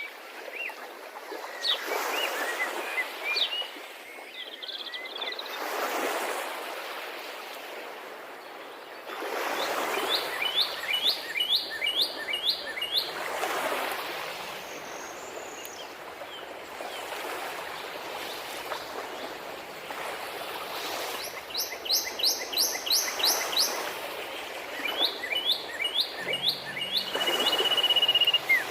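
Birds calling in runs of quick, short, repeated high notes, five to seven in a row, several times over. Under them is a rushing water sound that swells and eases every few seconds.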